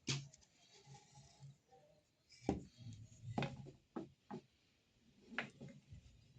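Light, scattered knocks and clicks, about six of them a second or so apart, like wooden workpieces or hand tools being picked up and set down.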